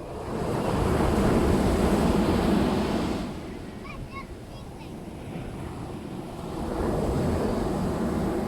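Ocean waves breaking on a beach: one wave surges and washes in for about three seconds, falls back to a lull, and another builds near the end.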